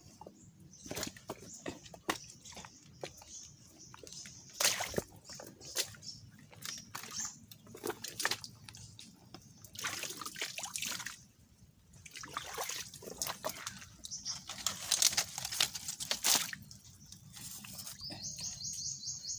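Steps squelching and splashing through a shallow muddy creek, with irregular knocks and rustles as branches and palm fronds are brushed past. Near the end, water splashes around a bamboo crab trap in the stream.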